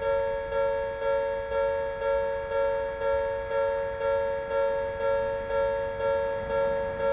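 Japanese railway level crossing's electronic warning alarm, the rare old Odakyu-type tone, ringing about twice a second, each two-toned strike fading before the next.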